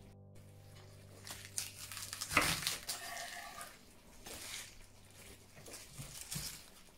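Fresh bok choy handled and set down on a wooden cutting board: leaves rustling and crinkling, with a few light knocks on the board. The loudest handling comes about two and a half seconds in.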